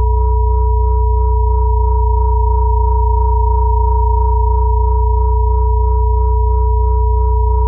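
Steady electronic sine tones held without change and without melody: a high tone near 963 Hz and a middle tone near 432 Hz over a strong low 60 Hz hum. This is the layered pure-tone drone of a solfeggio-frequency healing track.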